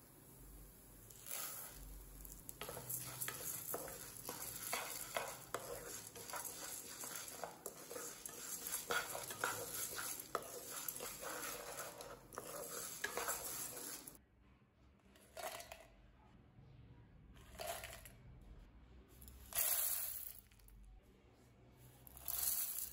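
Wooden spatula stirring and scraping chana dal and urad dal as they roast in a nonstick pan, the lentils rattling and sizzling lightly. After about 14 s this stops and a few short rattles follow as the roasted lentils are poured into a steel mixer jar.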